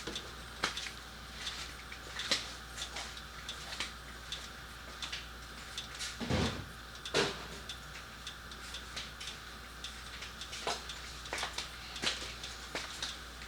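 Scattered light clicks and knocks, with a louder knock about six seconds in and another a second later, over a faint steady low hum.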